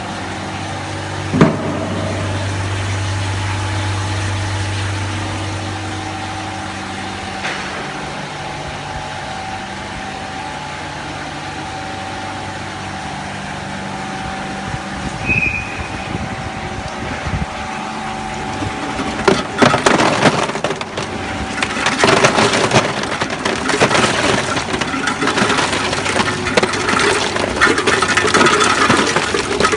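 Commercial cube ice machine running with a steady mechanical hum, then, from a little past the middle, loud irregular clattering and crunching of ice cubes tumbling out during harvest.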